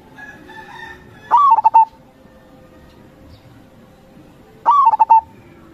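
Zebra dove (perkutut) singing two short coo phrases a few seconds apart, each a rising note followed by a quick run of rolling notes.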